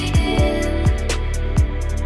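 Electronic background music: deep kick-drum hits over a sustained bass and held synth notes.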